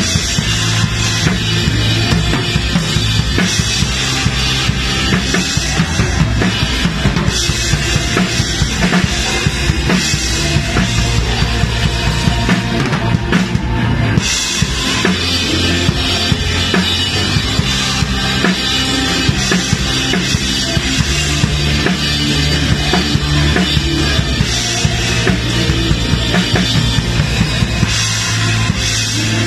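Live band music led by a close-miked acrylic drum kit: kick drum, snare and cymbals driving a steady beat. The cymbals drop out briefly just before the middle, then crash back in.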